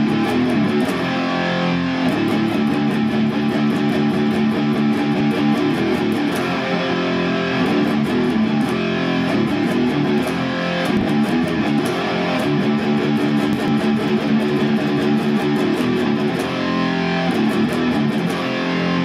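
Electric guitar music, loud and continuous.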